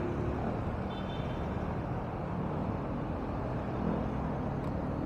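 Street traffic at an intersection heard from a motor scooter: a steady low rumble of engines running and cars moving. A brief faint high beep about a second in.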